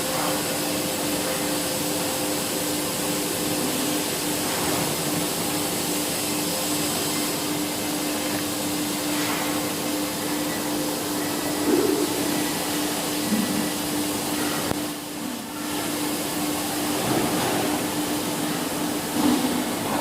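Polyurethane gasket dispensing machine running: a steady mechanical whir with a constant hum, dipping briefly about fifteen seconds in.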